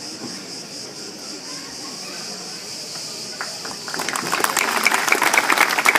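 Audience applauding, breaking out about four seconds in, over a steady high chirring of insects.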